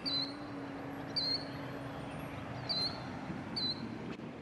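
A bird giving short, high chirps, four times about a second apart, over a steady background hiss. A low held note, the tail of the preceding music, fades out about halfway through.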